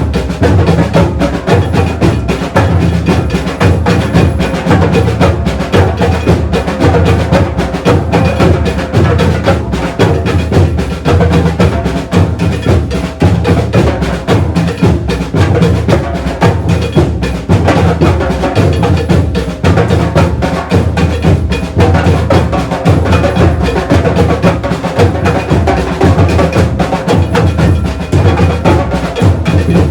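Batucada drum ensemble playing a steady, driving rhythm: deep surdo bass drums beating under dense higher drum strokes.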